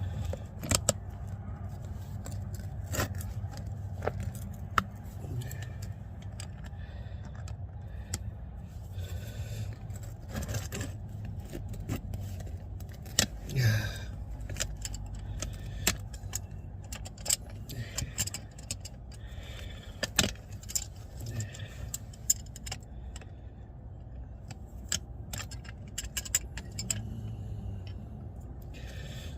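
Metal hand tools and brake parts clinking and scraping with scattered sharp clicks, during hand work on a drum brake assembly, over a steady low hum.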